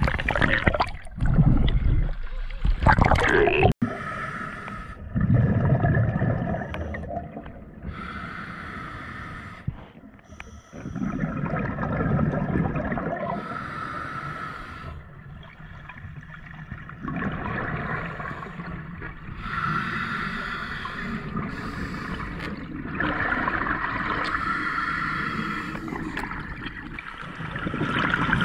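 Water splashing and churning for the first few seconds, cut off suddenly. After that, underwater, a diver's slow breathing comes every few seconds, with bubbling and gurgling water.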